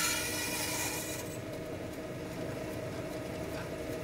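Band saw blade cutting through a hard-packed snowball with a hiss that stops suddenly about a second in as the blade comes through. The saw keeps running with a steady hum.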